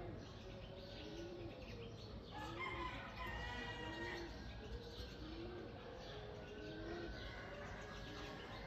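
A dove cooing over and over, a short call about once a second, with other small birds chirping briefly about three seconds in, over a low steady background hum.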